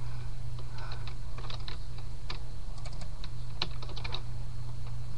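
Computer keyboard typing: irregular clusters of key clicks, over a steady low hum.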